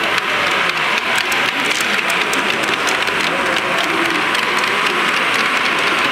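Steady hubbub of many voices in a large exhibition hall, with scattered small clicks.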